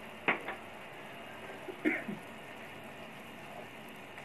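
Onion-tomato masala sizzling steadily in a non-stick frying pan, with two short sharp sounds about a second and a half apart near the start.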